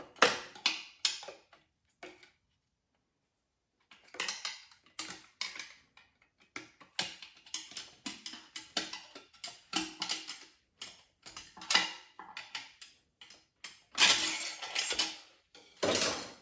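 Metal-on-metal clicks, clinks and scrapes of hand tools working the beveled snap ring out of a TH400 transmission case to free the center support. They come in irregular bursts, with a pause of about two seconds near the start and a longer, louder scrape near the end.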